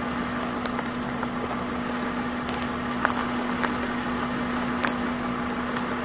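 Car rolling slowly over gravel with its engine running: a steady engine hum under the crunch of the tyres, with a few scattered small pops and ticks.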